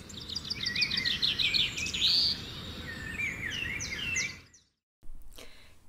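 Birds singing, with quick runs of chirps and short rising and falling notes, over a low background rumble; it stops about four and a half seconds in.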